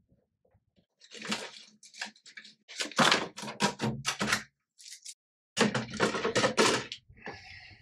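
Hands working inside a Bambu Lab P1S 3D printer's enclosure during unpacking: after about a second of quiet, a run of irregular knocks, clacks and scrapes as parts and packing inside are handled and pulled loose.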